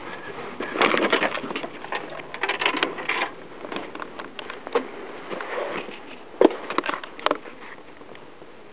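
Close scuffing and rustling as a kitten's fur brushes against the camera, in two louder bouts in the first three seconds, then scattered sharp clicks and taps.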